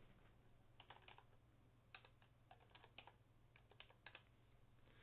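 Faint computer keyboard typing: four short runs of key clicks as a username and password are entered at a login prompt.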